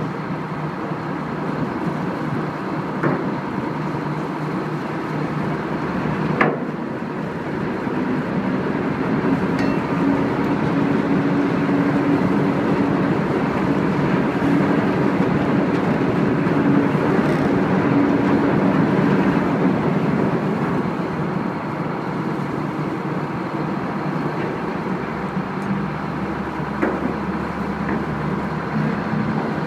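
Tugboat engine droning steadily under the rush of wind and water, swelling louder for a stretch in the middle. A few sharp metal clanks ring out as deckhands handle chain and shackles on the steel deck.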